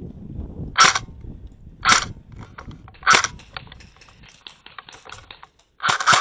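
Airsoft gunfire: single sharp shots, three of them about a second apart, then lighter ticks and clicks, and a quick pair of shots near the end.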